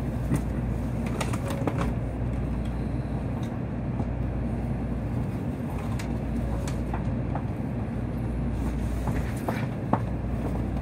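Steady low hum inside a Shinkansen car standing at the platform, with a few faint clicks and taps.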